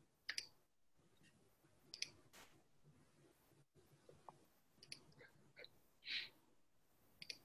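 Near silence over a video-call microphone: room tone with a few faint, scattered clicks and one short soft hiss near the end.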